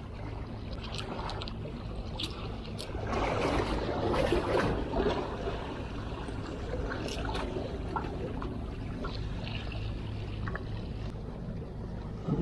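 Sea water lapping and splashing at the shore, louder for a couple of seconds about three seconds in, over a steady low hum, with scattered small clicks.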